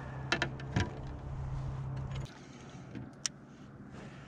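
A small motor hums steadily at a low pitch, then cuts off abruptly a little over two seconds in. A few sharp clicks and knocks come early on the hum, and one sharp click comes about three seconds in.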